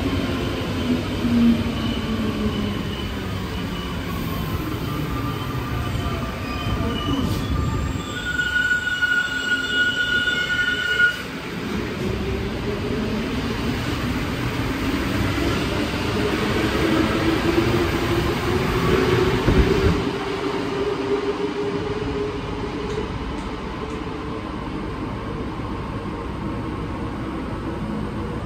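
Alstom NS-93 metro train heard from inside the car, with its running noise throughout. The traction motor whine falls in pitch as the train slows, and several steady high tones sound briefly about eight to eleven seconds in. The whine then rises in pitch again as the train speeds up.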